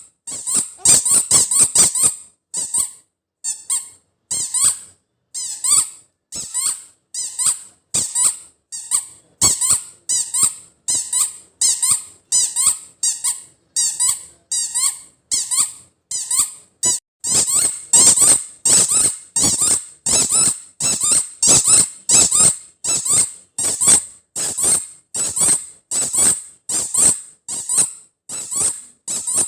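Squeaky rubber toy ball, the spiky 'chuu chuu' kind, squeezed over and over. It gives short, high squeaks about once or twice a second, sparser and softer for a few seconds near the start, then steady and loud.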